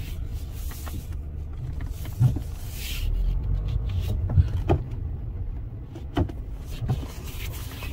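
Car driving slowly, heard from inside the cabin: a steady low engine and road rumble, with a few brief knocks and rattles.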